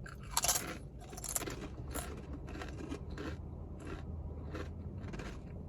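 Sriracha-flavoured Doritos tortilla chips being bitten and chewed: a crisp bite about half a second in, then steady crunching at about two chews a second.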